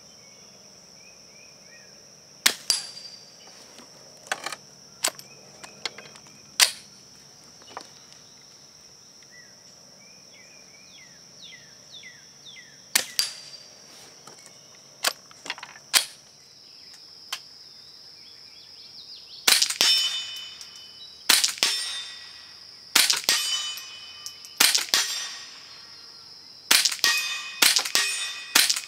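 Integrally suppressed Ruger 10/22 (Gemtech Mist barrel) firing .22 rimfire: sharp, fairly quiet cracks a second or several apart. In the second half comes a quicker run of louder shots, each with a ringing tail. A steady high insect buzz runs underneath.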